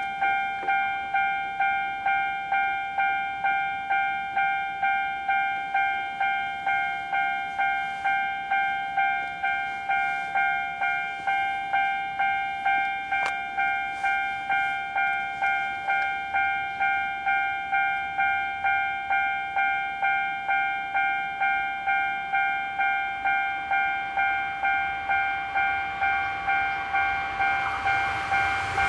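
Japanese railway level-crossing warning bell ringing steadily, an electronic ding repeating about one and a half times a second. Near the end, the running noise of an approaching electric train rises beneath it.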